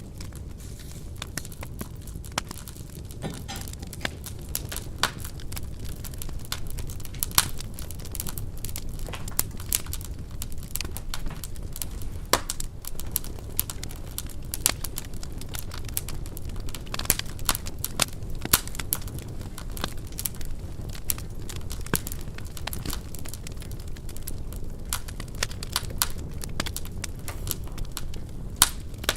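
Wood fire crackling steadily: a low rumble of flame with frequent irregular sharp pops and snaps from the burning logs.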